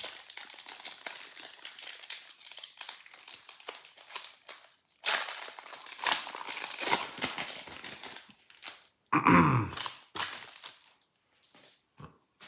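Foil wrapper of a Pokémon TCG Battle Styles booster pack crinkling as it is torn open and handled, in long stretches. About nine seconds in there is a short wordless vocal sound, the loudest moment, followed by one more bout of crinkling.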